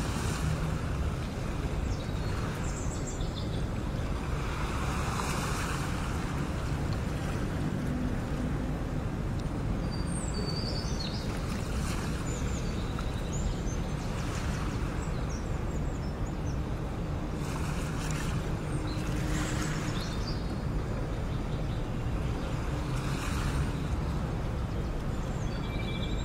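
Sea waves washing in with wind. A steady rush swells and ebbs every few seconds.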